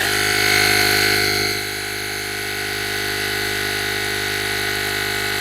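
Fanttik S100 APEX cordless tire inflator's compressor starting up and running with a steady buzzing hum while pumping a bicycle tire toward 60 psi; a little louder for the first second and a half, then even.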